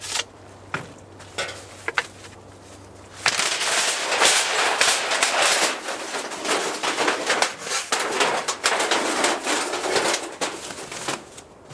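A few sharp metal clinks as a stainless tent stove and its flue pipe are fitted together. About three seconds in this gives way to loud, continuous scraping and rattling as the stainless stovepipe is slid out through the tent wall.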